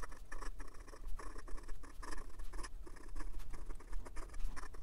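Kaigelu long blade steel #6 fountain pen nib scratching across lined notepad paper in quick, irregular pen strokes as words are written in cursive.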